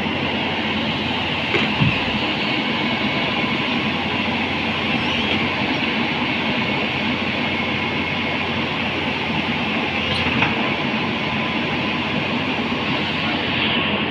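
Tata Hitachi hydraulic excavator running steadily under load as it crawls onto a low-bed trailer, its steel crawler tracks grinding and clanking against the deck. A few sharp knocks come about two seconds in and again near ten seconds.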